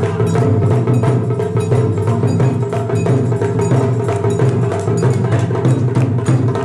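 Taiko drum ensemble playing: a dense, steady stream of wooden stick strikes on the drumheads and rims, with the low boom of the drums ringing under the clicks.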